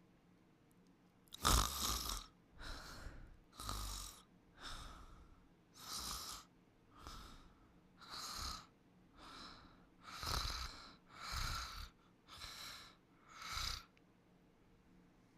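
Sleeper snoring: about a dozen noisy breaths, roughly one a second, starting about a second and a half in and stopping a little before the end.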